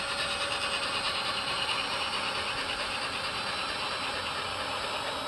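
Cordless drill boring into clear ice: the motor runs steadily while the bit grinds and chips through the ice.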